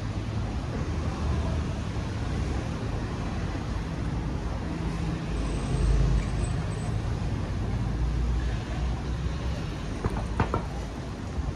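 City street traffic: a steady low rumble of motor vehicles passing, swelling loudest about six seconds in. A couple of short, sharp sounds come near the end.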